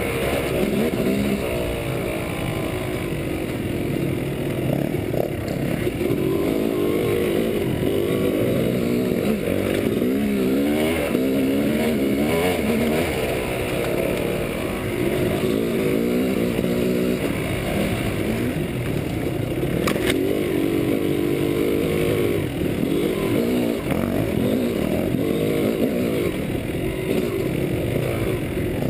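Dirt bike engine revving up and down over and over as the bike is ridden up a rocky trail, with a sharp knock about two-thirds of the way through.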